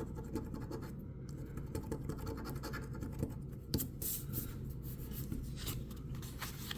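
A scratch-off lottery ticket being scratched, with many quick, short, irregular strokes scraping the coating off the play area.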